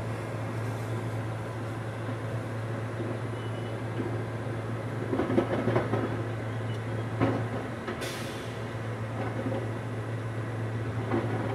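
Mack/Leach rear-loader garbage truck idling with a steady diesel hum, while trash and cans clatter into the rear hopper about five to six seconds in and again just after seven. A short hiss follows about eight seconds in.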